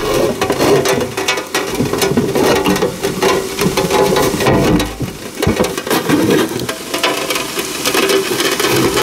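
Handling noise from a rain-wet camera being picked up and repositioned: close, irregular clicks, knocks and rubbing on the microphone, with raindrops tapping on the camera body.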